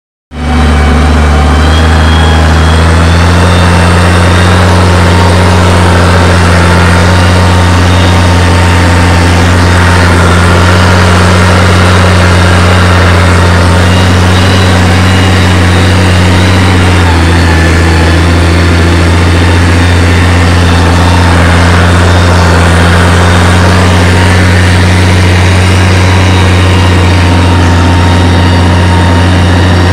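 Farm tractor's diesel engine running steadily under load as it pulls a disc harrow up a steep slope, heard from the operator's seat. The engine note drops slightly a little past halfway.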